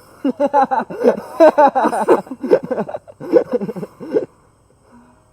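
A person laughing, a long run of quick bursts lasting about four seconds.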